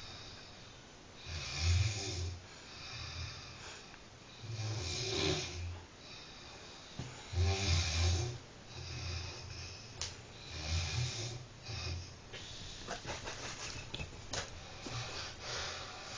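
A sleeping person snoring heavily, one rasping snore with a pulsing low rumble about every three seconds; four strong snores, then weaker, broken snores with small clicks over the last few seconds.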